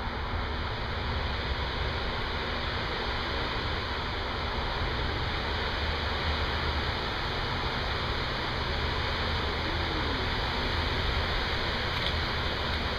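Heavy thunderstorm rain falling steadily, an even rushing noise with a low rumble underneath.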